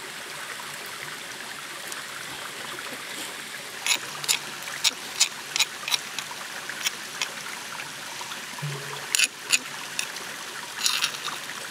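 A metal spoon taps and scrapes ground spice paste off a stone pestle into a clay mortar, making a run of sharp clicks from about four seconds in and a few more near the end. Under it, the steady rush of a stream.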